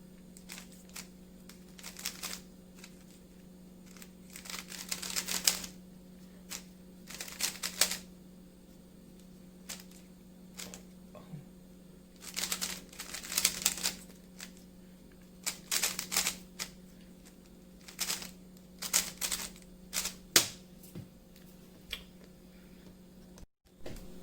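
Plastic 3x3 speed cube being turned fast during a solve: rapid clacking of the layers in bursts of a second or so, separated by short pauses, over a faint steady hum.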